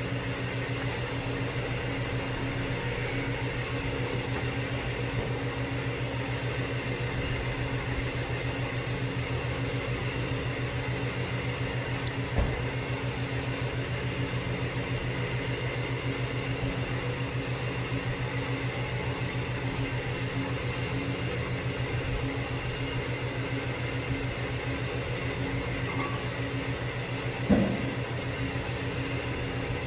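Steady mechanical hum of a machine running evenly, with a fine fast pulse, and a couple of brief knocks, one about twelve seconds in and a louder one near the end.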